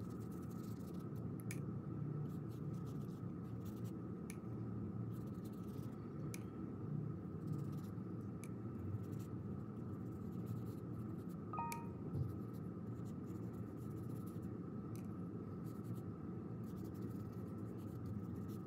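Watercolour brush stroking paint across paper: faint scratchy brushing with scattered small clicks, over a steady low hum.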